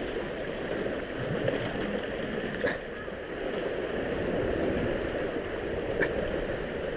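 Surf washing and breaking against a rocky shore, a steady rushing with wind on the microphone, and two short clicks, one about two and a half seconds in and one near the end.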